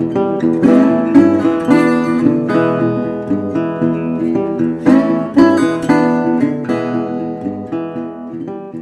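Intro music played on acoustic guitar: strummed and plucked chords in a steady rhythm, fading gradually over the last few seconds.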